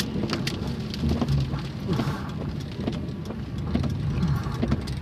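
Car running, heard from inside the cabin: a steady low hum with many scattered light clicks and taps.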